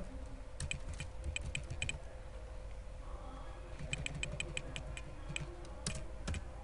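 Computer keyboard typing: a quick run of keystrokes in the first two seconds, a pause, then another run from about four seconds in. A faint steady hum lies underneath.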